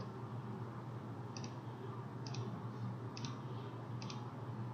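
Computer mouse clicked four times, each click a short double snap of button press and release, over a low steady hum.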